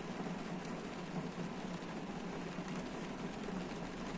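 Rain falling on a car's roof and windscreen, heard from inside the parked car as a steady, dense patter of drops.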